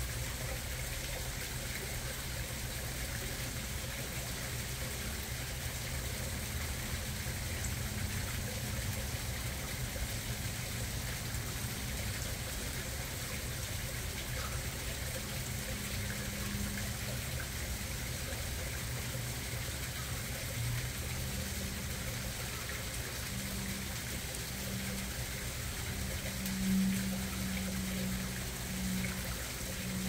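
Small garden pond waterfall splashing steadily into a koi pond. A low tone comes and goes in the second half.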